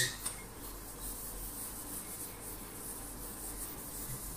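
Whiteboard eraser rubbing across a whiteboard, wiping off marker writing: a faint, steady rubbing.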